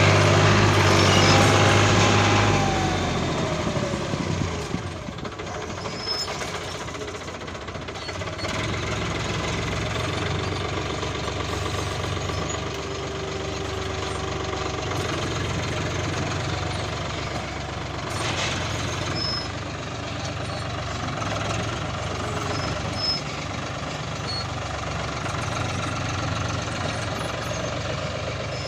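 Heavy diesel machinery engines running. They are loud for the first two seconds or so, with a falling whine, then settle to a quieter, steady running.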